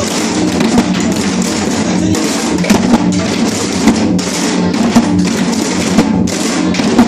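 Samulnori percussion playing, Korean drums and gongs together in a dense, continuous rhythm with sharp loud accents about once a second.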